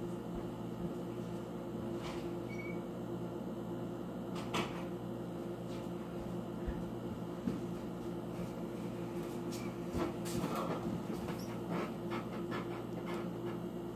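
Steady low room hum with a few scattered knocks and clicks, the sharpest about four and a half seconds in and a cluster of them around ten seconds in.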